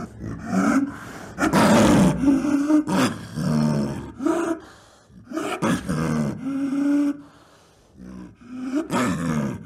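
Snow leopard calling: a string of short, pitched calls, the loudest and harshest about two seconds in, with a brief lull before the last call near the end.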